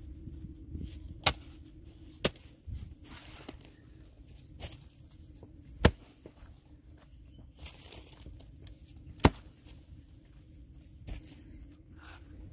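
Wooden-handled spade digging into dry soil: a few irregularly spaced sharp chops of the blade striking the ground, the four loudest about one, two, six and nine seconds in, with softer scrapes between.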